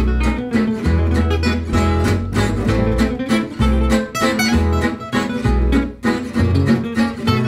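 Background music led by plucked and strummed acoustic guitar, with a steady beat and a bass line.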